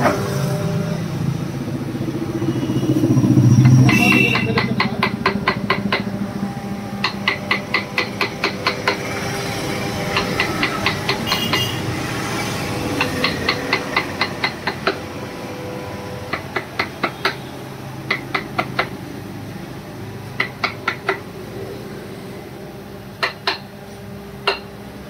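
Quick hand-tool taps on wood, such as a mallet on a carving chisel, in runs of several strokes at about five a second. A steady low hum runs underneath.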